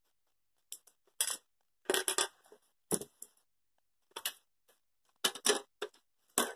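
Lego minifigures and pieces clicking and clinking against a glass tabletop, in short irregular clusters of sharp taps.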